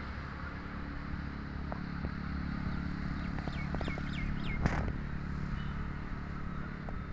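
A steady low engine hum runs throughout. About three and a half seconds in, a bird gives a quick run of falling chirps, and a sharp click follows just after.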